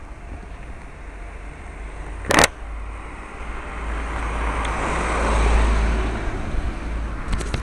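Handling noise on a small camera: a low rumble, one sharp knock about two seconds in, then a rush of noise that swells and fades around the middle.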